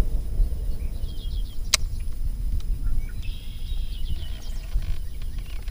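Birds chirping in short, repeated trills, heard twice, over a steady low rumble of outdoor noise. A single sharp click comes a little under two seconds in.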